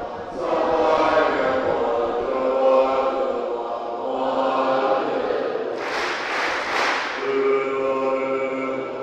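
Voices chanting together in long held tones. A short burst of hiss swells and fades about six seconds in.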